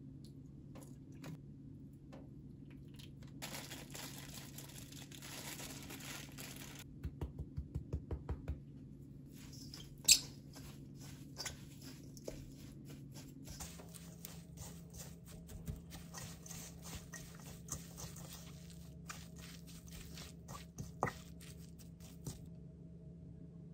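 Chopped chives and chili seasoning being tossed with a wooden spatula in a stainless steel bowl: soft crunching and many small irregular clicks of the spatula on the bowl. Earlier, fish sauce is poured in from a bottle, with a short run of quick taps and one sharp click about ten seconds in.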